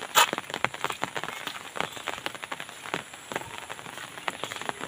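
Light rain pattering: many irregular drops ticking, with one sharper tick just after the start.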